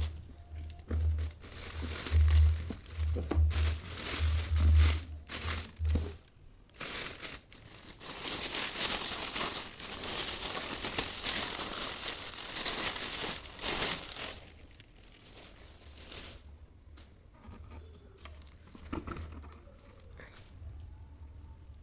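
Packaging being crinkled and torn open as a coffee maker is unboxed, busy and loud for about the first fourteen seconds, then quieter and sparser.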